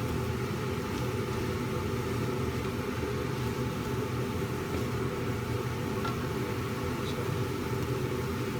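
Steady whirring hum of a kitchen exhaust fan over the hiss of food stir-frying in a pan, with a few faint clicks about six and seven seconds in.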